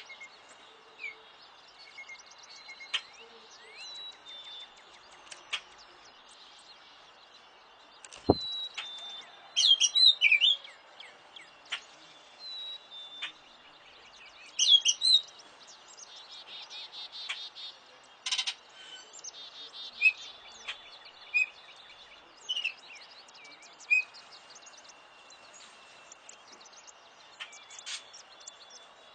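Several songbirds chirping and whistling, with the loudest clear whistled phrases about ten and fifteen seconds in. A single sharp click comes about eight seconds in.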